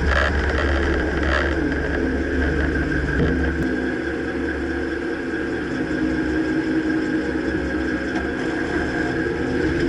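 2009 Dodge Ram pickup running, a steady engine and road noise with a low rumble that eases about three seconds in. Two brief knocks come in the first second and a half.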